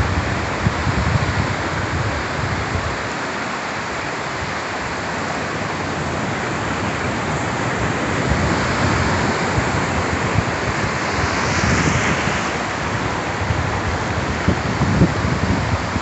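Ocean surf on a flat sand beach: a steady hiss of breaking waves and foam washing over the shallows, with one wave's rush swelling and fading about three-quarters of the way through.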